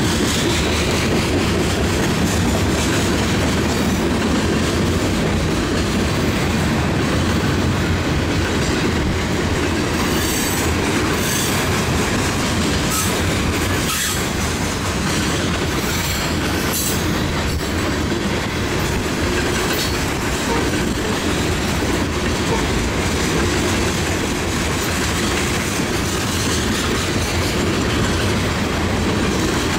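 Covered hopper cars of a freight grain train rolling past on the rail bridge: a steady rumble of wheels on rail, with short high-pitched wheel squeals between about ten and seventeen seconds in.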